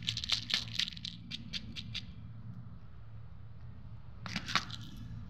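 Cats crunching dry kibble: a quick run of crisp crunches for the first two seconds, a lull, then another short cluster near the end.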